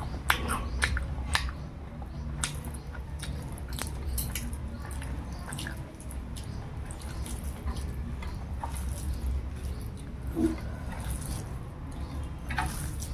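Fingers mixing rice with dal and curry on a plate: soft squishing and many small clicks and taps, over a low steady hum.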